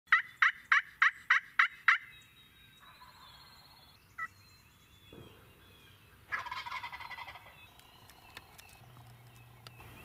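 Wild turkey calls: a run of seven loud, sharp yelps in the first two seconds, then about six seconds in a gobbler gobbles once, a rattling call lasting about a second.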